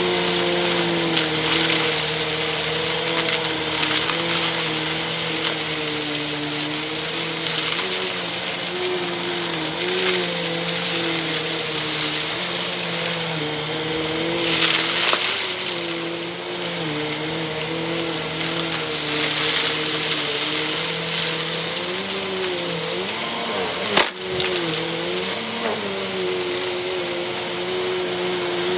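Vacuum cleaner running over a dusty rug: a steady motor hum whose pitch wavers slightly as it is pushed, with a thin high whine and crackly pickup of dust and grit. One sharp click late on.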